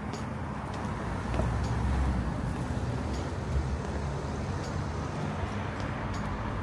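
High-street traffic ambience: a steady low rumble of road traffic that swells about two seconds in as a vehicle passes, with faint light ticks through it.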